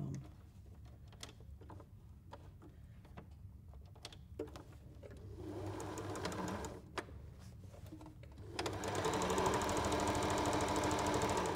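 Electric sewing machine stitching through fabric: a few light clicks, then a short run about five seconds in, then a longer, louder steady run over the last three seconds.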